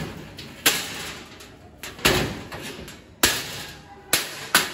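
Hammer striking the sheet-metal panels and steel frame of a cargo box, five sharp metallic bangs, each with a short ring that dies away; the last two come close together.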